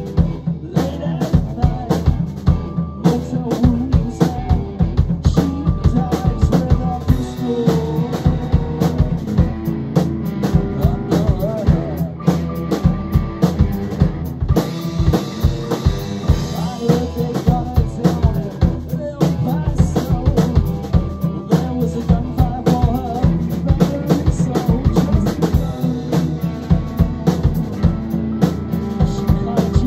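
A rock band playing a song live: a drum kit keeping a steady beat with bass drum and snare under electric guitars.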